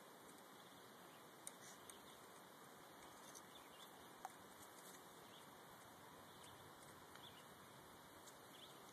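Near silence: a steady faint hiss with a few scattered soft clicks and ticks, the sharpest about one and a half seconds and four seconds in.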